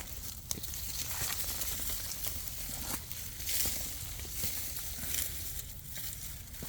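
Rustling and scraping noise with scattered soft clicks and knocks.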